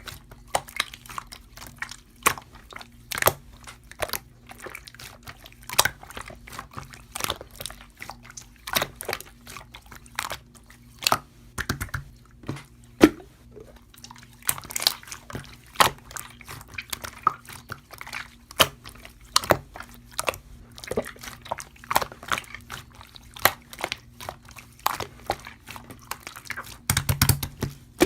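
Irregular crisp clicks and crunches, several a second, over a faint steady low hum.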